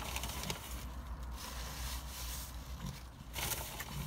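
Chewing and wet mouth noises from a mouthful of chicken sandwich with lettuce and tomato, with a brief louder patch a little after three seconds, over a steady low hum.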